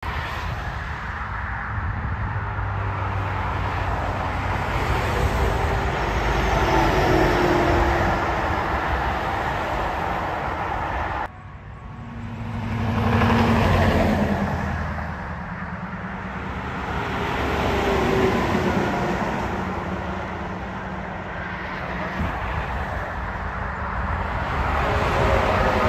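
Highway traffic with semi trucks and cars passing: a steady rush of tyre and engine noise that swells and fades as each vehicle goes by. The sound drops away suddenly about eleven seconds in, then builds again as the next truck approaches.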